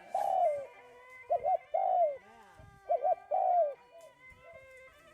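A dove cooing, repeating a phrase of two short coos followed by a longer falling coo, about three times.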